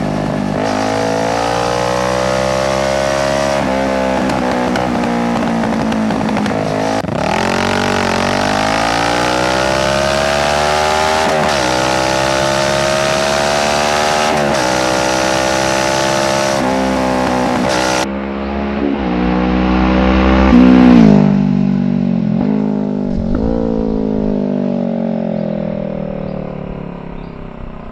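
Kawasaki Z650's parallel-twin engine through a full Ixil exhaust with no dB killer, accelerating hard up through several gears, its pitch climbing and dropping back at each upshift. Past the middle it slows down through the gears, with a loud peak about three quarters of the way in, and fades away near the end.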